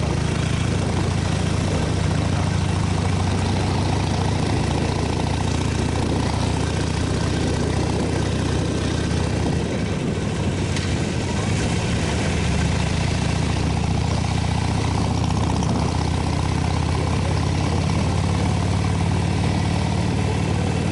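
Motorcycle engine running at a steady, even pitch.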